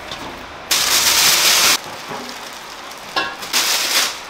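Plastic bags rustling and crinkling in two bursts, a long one about a second in and a shorter one near the end.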